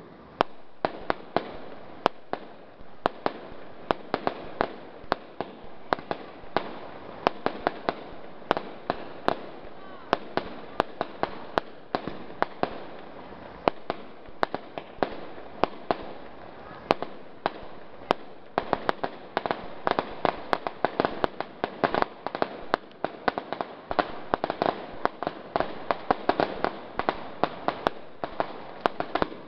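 Fireworks going off: a rapid string of sharp bangs over steady crackling, several a second, growing denser about two-thirds of the way through.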